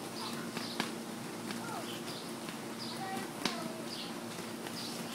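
Trampoline springs squeaking in a regular rhythm, about once every three quarters of a second, as children bounce, with a few sharp thumps of feet landing on the mat over a steady low hum.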